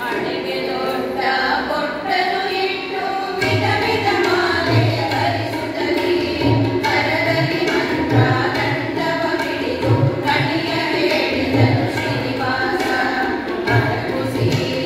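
A group of women singing a devotional song together, with tabla accompaniment; the tabla's deep bass strokes come in a few seconds in and keep a steady rhythm under the voices.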